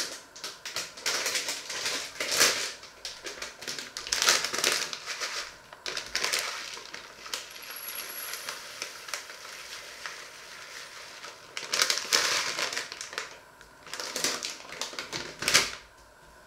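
A packet crinkling in the hands in repeated bursts as it is opened and tipped, with small dry grains pouring from it into a ceramic mug.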